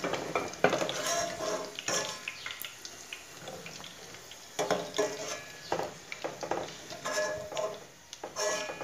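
A perforated stainless steel skimmer scraping and clinking against a stainless steel pot as it scoops fried chicken pieces out of hot oil. The strikes come irregularly, several times, some with a short metallic ring, over a light sizzle of the oil.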